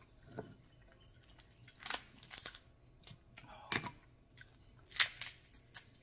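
Snow crab leg shells being cracked and snapped apart by hand as the meat is pulled out: a few sharp cracks and snaps, the loudest near the end.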